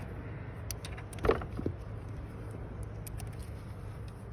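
Socket, extension and other hand tools being handled: a few light clicks and one louder knock about a second in, over a steady low hum.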